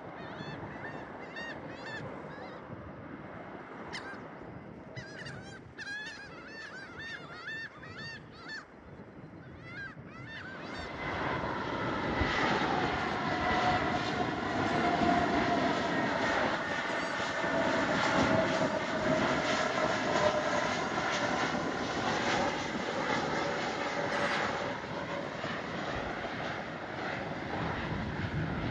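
Birds call in quick, repeated honking notes for the first ten seconds or so. Then the noise of an arriving Airbus A321neo's Pratt & Whitney geared turbofan engines swells and stays loud, with a steady whine over the rumble.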